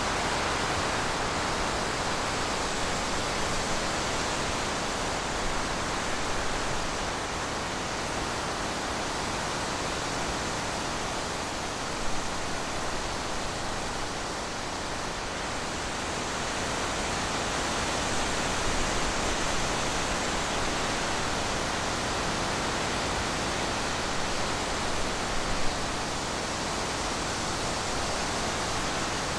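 Steady, even hiss of background noise, with two small brief knocks, one about twelve seconds in and one near the end.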